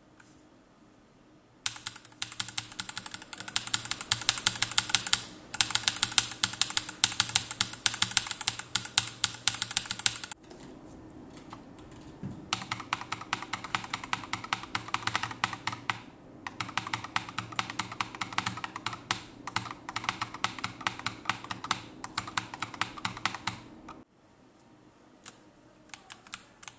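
Mechanical keyboard with Akko CS Matcha Green switches and SA-profile doubleshot PBT keycaps, keys hammered rapidly as in rhythm-game play. There are two long runs of fast clicking, split by a short pause about ten seconds in, and only a few scattered key presses near the end.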